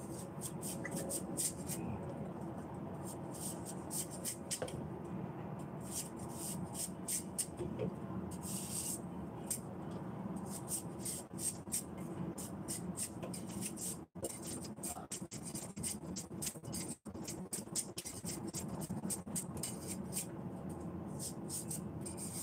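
A cleaver blade scraping and shaving the skin off a celtuce (stem lettuce) stem, in many quick, short strokes that come in irregular runs, over a steady low hum.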